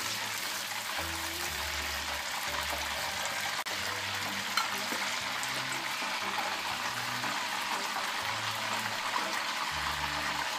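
Hot oil sizzling steadily in a frying pan where large shrimp have been frying.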